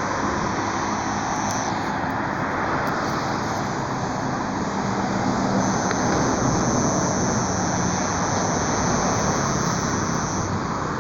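A thin, steady high-pitched buzz, likened to a cricket or cicada, over steady car and road noise. The buzz stops about two seconds in, comes back around halfway through for about five seconds, then stops again near the end.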